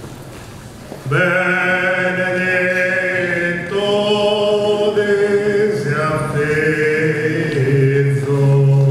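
Sardinian cuncordu (cuntzertu) singing: four male voices a cappella in close harmony, holding long chords over a deep bass voice. The voices come in together about a second in, and the chord shifts every second or so.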